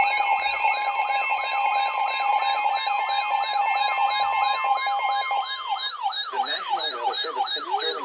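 Several weather alert radios sounding their alarms together for an incoming special marine warning: a siren sweep that falls in pitch about three times a second, over steady high alert tones. Some of the steady tones stop about five and a half seconds in.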